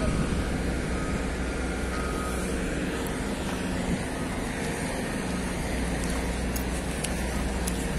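Heavy crawler crane's diesel engine running steadily with a low drone, holding a suspended load.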